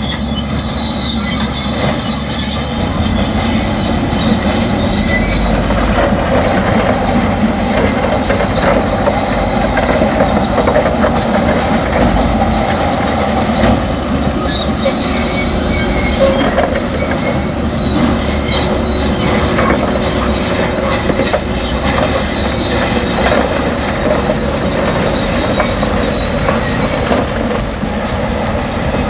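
Heavy earthmoving machines at work: a bulldozer and a dump truck's diesel engines running steadily, with high-pitched squealing and clanking of steel crawler tracks, while the truck raises its bed and tips out a load of broken stone.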